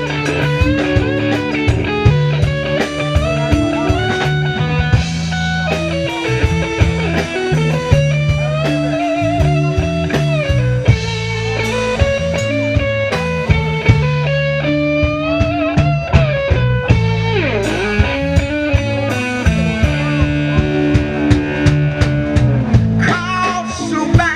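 Live band playing an instrumental break: a lead guitar plays melodic lines with bends and vibrato over a bass line and a drum kit.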